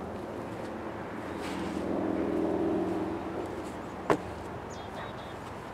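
A block is set down on the cold frame's wooden edge with a single sharp knock about four seconds in. Under it runs a steady low hum that swells and fades in the middle.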